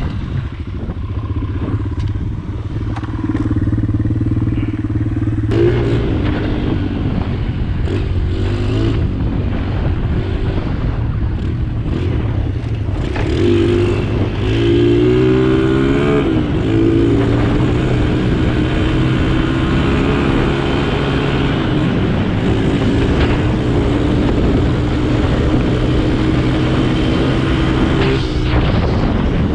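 An engine running steadily close by, its pitch rising and falling between about six and nine seconds in and again between about thirteen and seventeen seconds in.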